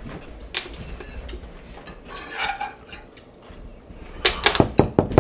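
A quiet stretch with a single click about half a second in, then a quick run of about eight sharp knocks near the end.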